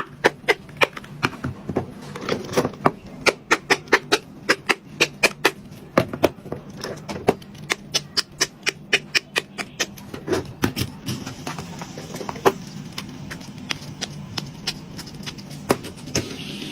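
Bubbles of a silicone pop-it fidget toy being pressed in one after another: a quick run of sharp pops, several a second, thinning out after about ten seconds.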